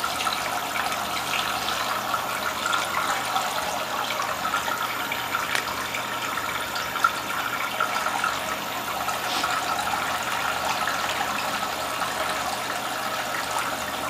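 Return water from a chilled-water radiator loop pouring steadily out of the end of a hose into a tank of ice water, with one brief click about halfway through.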